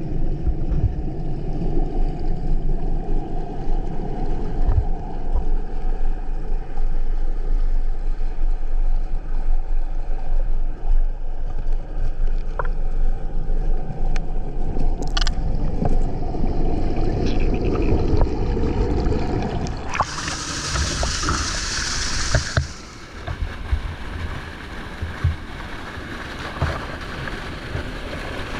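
Rushing water from a waterfall, a loud steady noise heavy in the low end, with a brief burst of bright hissing splash about twenty seconds in, after which the water sound is lighter.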